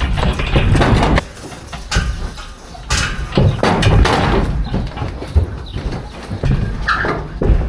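Cattle hooves clattering and banging on a stock trailer's floor as bulls unload, in a dense run of knocks and scrapes.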